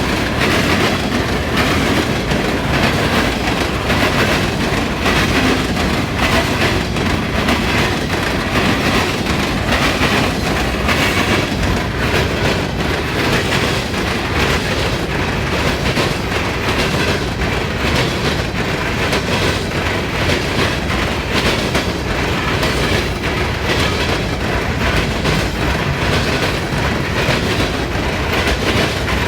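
Loaded coal train passing at speed, its wheels hammering over the diamond crossings of an interlocking in a rapid, continuous clatter of impacts.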